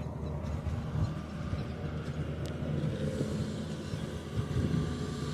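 Long-reach excavator's diesel engine running steadily with a low hum.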